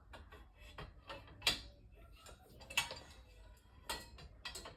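Small metal clicks and clinks of steel dresser frame parts and screws being handled during assembly, with a few louder, sharper taps spread through.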